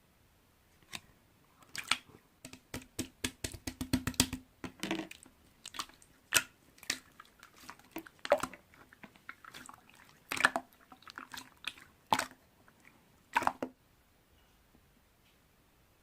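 Slime being squished and pressed by hand: a run of sticky, wet clicks and pops, thickest around four seconds in, stopping about two seconds before the end.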